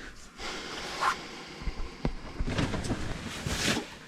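Rustling and handling noise with a few sharp knocks and a burst of small clicks, like gear or clothing being handled close by.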